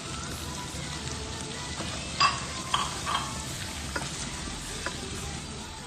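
Panaeng curry with shrimp and squid sizzling in a pan as it is stirred, the coconut cream already split into its oil. A few sharp knocks and scrapes of the utensil against the pan come about two to three seconds in and again near four and five seconds.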